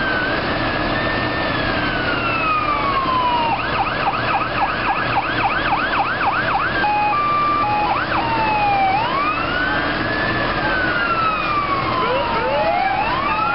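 Fire truck's electronic siren cycling through its modes: a slow wail rising and falling, then a fast yelp of about four sweeps a second, two alternating hi-lo tones, and the wail again. A second siren joins near the end, over the steady hum of a truck engine.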